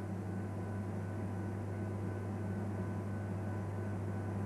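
Steady low machine hum with a faint hiss, the room tone of a laboratory with its instruments running; a faint high tone pulses about three times a second.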